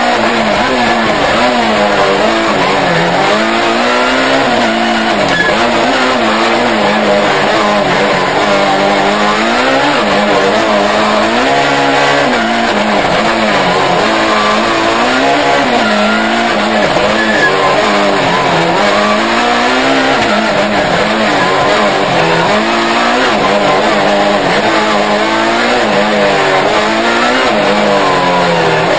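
Peugeot 306 Maxi rally car's four-cylinder engine, heard from inside the cockpit, revving hard and dropping again every second or two through gear changes and braking. It runs loud throughout.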